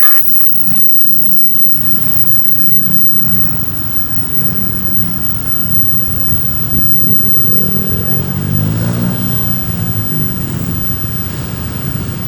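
Road vehicle engines running steadily, one growing louder with a wavering pitch about eight to ten seconds in.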